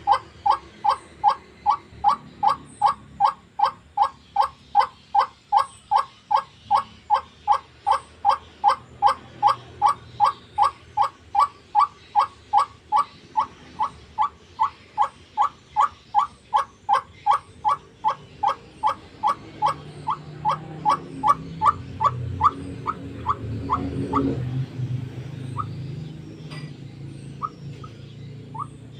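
White-breasted waterhen (ruak-ruak) giving its long rhythmic series of harsh, evenly spaced calls, about two to three a second. The series breaks off near the end, leaving a few scattered calls. A low rumble rises underneath shortly before the series stops.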